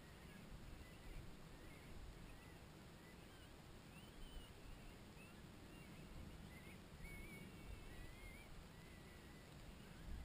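Near silence: a faint low rumble on the microphone, with a few faint, short high chirps scattered through.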